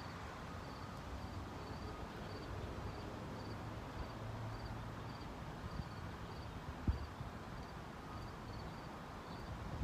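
Steady outdoor background with a short, high insect chirp repeating about twice a second, and one brief thump about seven seconds in.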